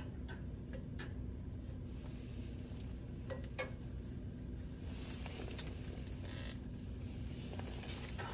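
Bread being toasted on a griddle pan on a propane camp stove: a few light clicks and taps of a spatula and bread slices against the pan, over a steady low hum.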